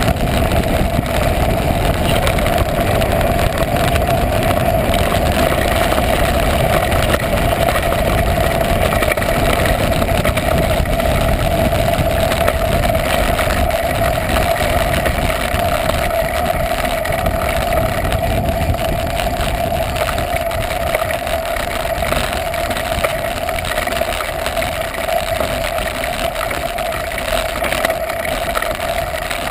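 Steady wind and rolling rumble picked up by a GoPro camera on a downhill mountain bike in motion, with a constant hum from the camera housing.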